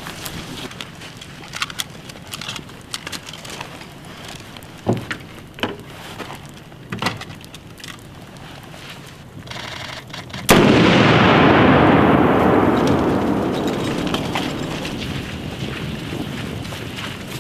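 Scattered sharp cracks of rifle fire. About ten seconds in, an explosive door-breaching charge goes off in a sudden loud blast, with a long noisy tail that fades slowly over several seconds.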